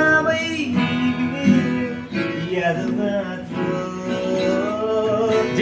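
A man singing a slow song, accompanied by an acoustic guitar, with long held notes.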